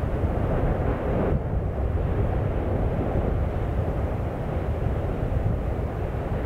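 Steady low rumble of an erupting volcano, mixed with wind buffeting the microphone; the higher part of the rumble falls away about a second and a half in.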